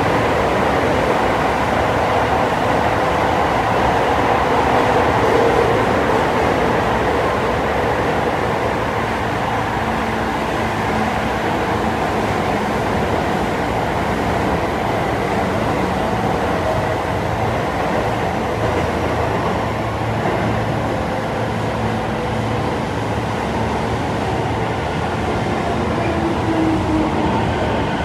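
Toei 10-300 series subway train running through a tunnel, heard from inside the passenger car: a steady rumble of wheels on rail that eases slightly after the first several seconds, with a few faint tones over it.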